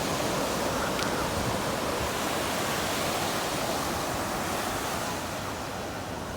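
Ocean surf washing onto the beach, a steady rush that eases slightly near the end.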